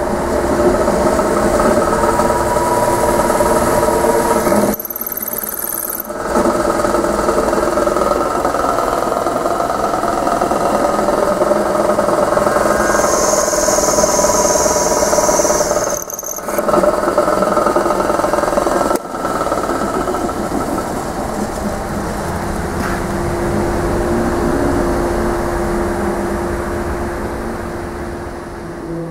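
Buffalo No. 16 floor drill press running, its twist drill boring into a metal bar held in a vise: a steady machine noise with several steady tones and a high whine at times. It drops away briefly about five, sixteen and nineteen seconds in.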